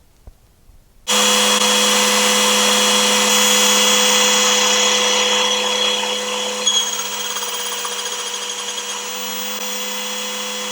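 A motor whirring steadily at one pitch, like a power tool, starting suddenly about a second in and easing slightly in level partway through.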